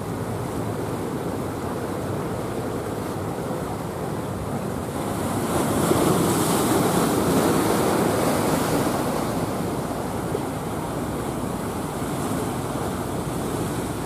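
Ocean surf rushing and breaking, swelling louder for a few seconds in the middle, with wind buffeting the microphone.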